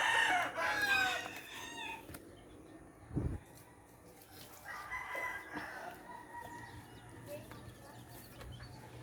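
A rooster crowing loudly, one drawn-out crow over the first two seconds. A low thump follows about three seconds in, and a second, fainter drawn-out call comes about five seconds in.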